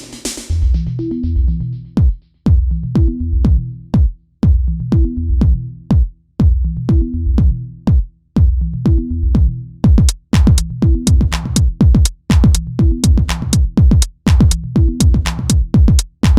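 Electronic background music with a steady drum-machine beat and bass line; the percussion grows busier about ten seconds in.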